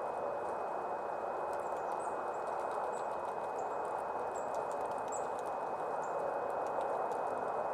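Steady hiss of rain, with short, very high-pitched calls of small birds scattered through it.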